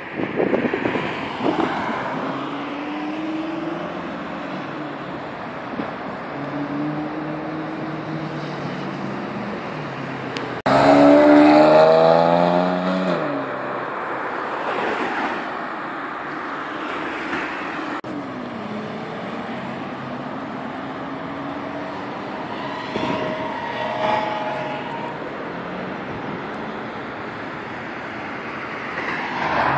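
Performance cars accelerating past on a city street, their engines revving up in rising sweeps. The loudest comes in suddenly about eleven seconds in, pitching up quickly several times over the next couple of seconds, with ordinary traffic running underneath.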